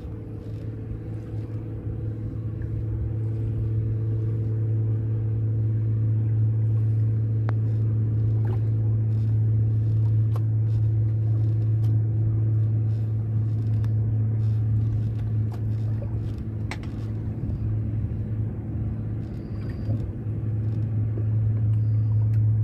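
Boat engine running steadily at idle: a continuous low drone with a few faint clicks over it.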